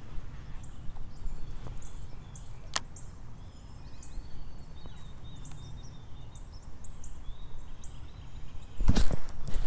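Outdoor ambience with a steady low rumble of wind on the microphone and a few sharp clicks. Faint short chirps come in the middle, and a louder burst of clattering handling noise starts near the end.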